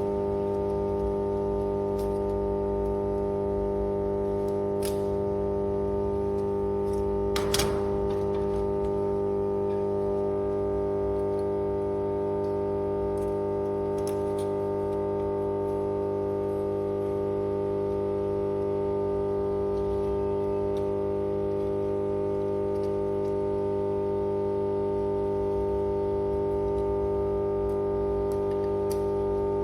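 Power transformer humming steadily, a constant drone of stacked tones spaced evenly, with a few sharp clicks and taps, the loudest about seven seconds in.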